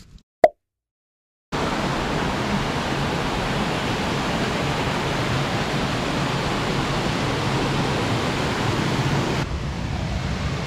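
A brief sharp pop about half a second in, then after a moment of silence the steady rushing of a waterfall cascade, turning duller near the end.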